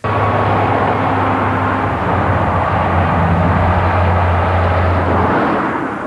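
Highway traffic with a semi-truck passing close by: a steady engine drone and tyre rush that begin abruptly and fade near the end.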